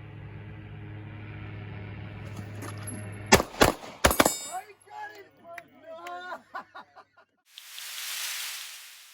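A quick string of about four sharp pistol shots a little past three seconds in, followed by broken pitched sounds and then a rushing whoosh near the end.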